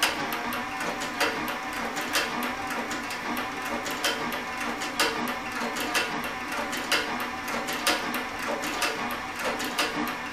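Cowboy CB3200 heavy-duty compound-feed walking-foot sewing machine stitching a thick leather belt: a steady rhythm of clicks from the needle and feed stroke, over the whir of its under-table motor.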